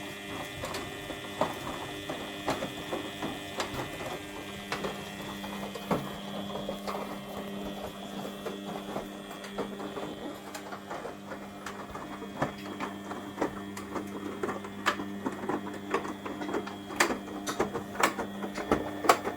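Front-loading washing machine running mid-wash with its covers off: a steady motor hum and whine under frequent, irregular sharp clicks and knocks, which grow busier near the end.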